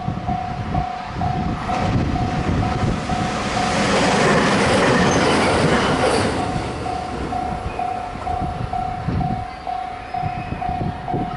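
Level-crossing warning bell ringing in a steady pulsing pattern, about two and a half dings a second. About four seconds in, a train passes over the crossing, and the noise of its passing briefly drowns the bell before the bell rings on.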